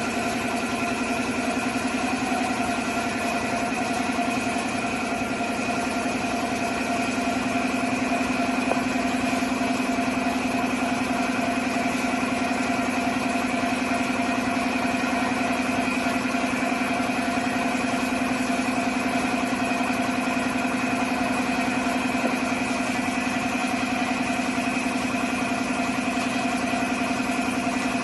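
Portable piston air compressor running steadily, a constant motor hum that feeds a paint spray gun, getting slightly louder about a quarter of the way in.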